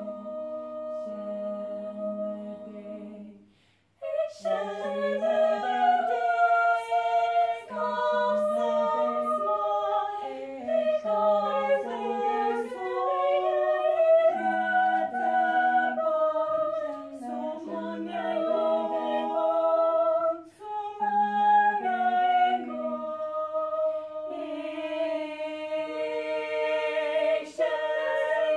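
Two women singing a cappella together, with no instruments. The singing breaks off briefly a little under four seconds in, then resumes.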